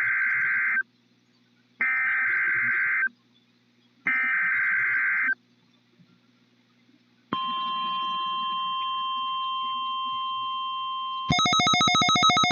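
NOAA Weather Radio test alert: three bursts of SAME header data screech for about a second each, a second apart. After a short pause the steady 1050 Hz warning alarm tone starts, and about eleven seconds in a louder, pulsing, buzzy electronic alarm cuts in over it.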